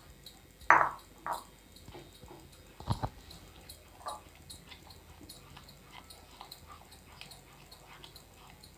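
Wooden spatula stirring a thick, wet peanut-powder and sugar-syrup mixture in a nonstick pan: soft wet scrapes and small taps against the pan. The loudest are two sharp scrapes just under a second in and a dull knock about three seconds in.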